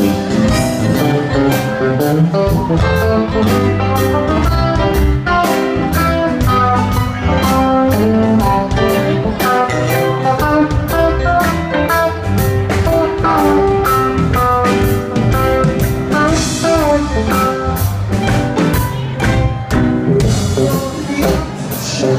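Live rock band playing an instrumental passage without vocals: electric guitar lines over a steady drum beat, bass and keyboards.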